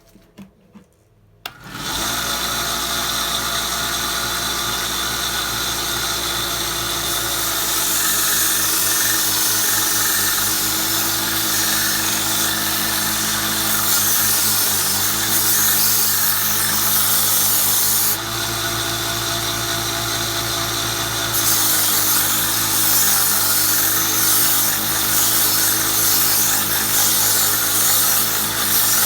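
Belt sander switching on about a second and a half in and running steadily. From about seven seconds a steel draw knife blade is ground on its 120-grit belt, adding a loud hiss. The blade is lifted off for a few seconds around eighteen seconds and then pressed back on, and the motor's pitch dips briefly under the pressure.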